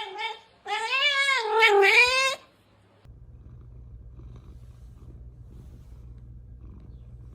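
A domestic cat gives two drawn-out, wavering yowls, the second louder and bending up and down in pitch. After a brief pause, a low, steady purr starts about three seconds in.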